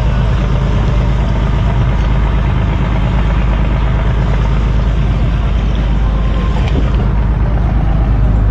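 Houseboat's engine running steadily under way, a constant low drone with water and wind noise over it.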